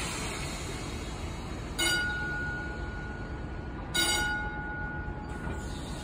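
Two strikes on the gong of a 1930 Peter Witt streetcar, about two seconds apart, each ringing on for about a second. A low rumble from the car rolling on the rails runs underneath.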